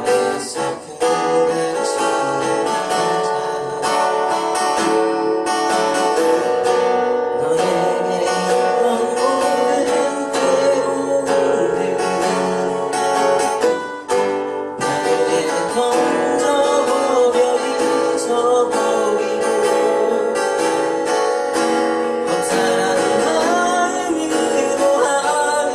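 Live acoustic guitar strumming, with a voice singing a melody over it from about a third of the way in.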